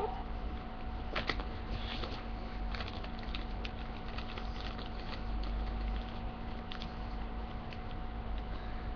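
Faint, scattered taps and rustles of paper being handled and folded, over a steady electrical hum from the webcam's microphone.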